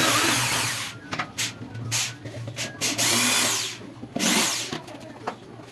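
Power drill running in short bursts, each a second or less, working wood boards, over a low steady hum.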